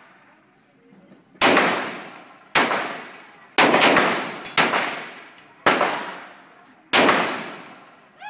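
Glock 34 Gen 4 9mm pistol firing a steady series of single shots about a second apart. Each shot rings off in a long echo through the indoor range.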